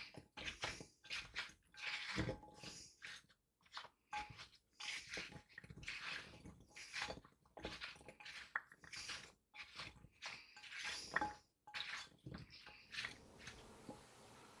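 A spatula stirring sliced apples, blueberries and cinnamon in a glass bowl: irregular wet, crunchy scraping with light taps against the glass, stopping about a second before the end.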